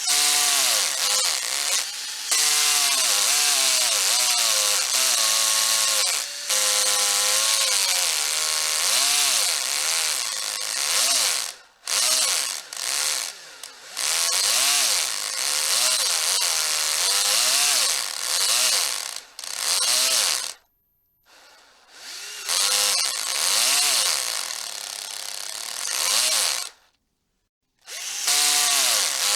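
Electric hammer drill running in bursts, its motor pitch rising and falling again and again as the trigger is squeezed and eased, over a harsh rattling hiss. It stops briefly a few times.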